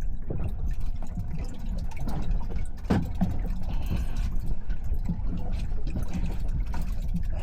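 Water sloshing and lapping against a boat's hull, over a steady low rumble. One brief louder sound comes about three seconds in.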